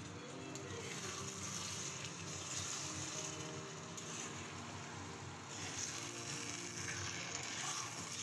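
Metal spatula scraping and stirring small fish and onions in an oily frying pan, with the food frying, over quiet background music.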